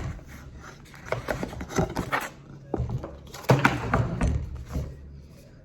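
Apple Watch Series 5 box being opened and handled: rustling and scraping of the packaging with irregular clicks and soft knocks, busiest about two seconds in and again three and a half to four seconds in.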